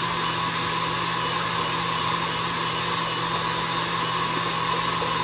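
Electric stand mixer running at a steady speed, its motor humming and whirring as the beater mixes thick cheesecake batter of cream cheese, sour cream and flour in a steel bowl.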